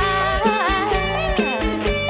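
Live mor lam band music: a lead melody with sliding, bending notes over bass and a regular drum beat.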